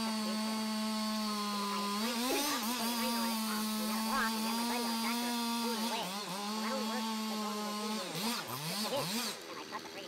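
Chainsaw running at full throttle in the back cut of a large tree trunk, its pitch steady at first and then wavering as the bar loads in the wood. Near the end the pitch swings up and down several times quickly and then falls away as the throttle is let off and the saw comes out of the cut.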